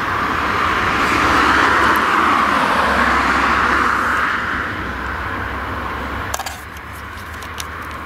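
A road vehicle passing by, its noise swelling and then fading away over a steady low rumble, with a few sharp clicks near the end.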